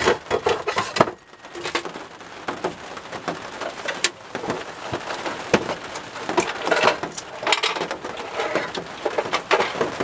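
Hard plastic bird-feeder housing and camera bracket knocking and clicking as they are handled and fitted together, a run of short irregular taps and clatters.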